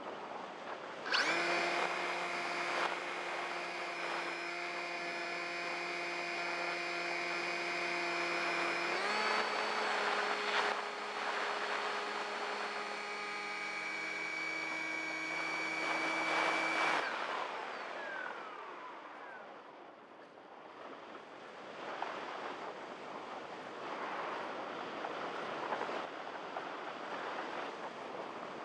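Electric motor and propeller of a Multiplex EasyStar RC plane starting about a second in with a steady whine over wind rush. The pitch steps up about a third of the way through. The motor cuts off about two-thirds of the way in, and the propeller winds down with a falling whine. After that only wind rushes over the plane as it glides.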